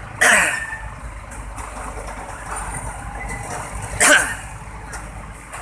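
Heavy truck engine running with a steady low rumble, broken twice, about four seconds apart, by a sudden loud sharp sound that falls in pitch.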